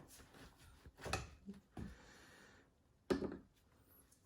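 Faint kitchen handling noises: a few light knocks and clatters, then one sharper knock about three seconds in.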